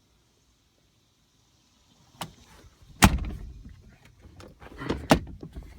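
Clicks and knocks from handling things inside a car's cabin, with a heavy thud about three seconds in and another about five seconds in, after about two seconds of silence.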